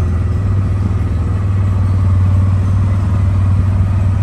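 Small auto-rickshaw engine running steadily as it drives along, heard from inside the passenger cabin: a loud, even low drone with a fast pulsing throb.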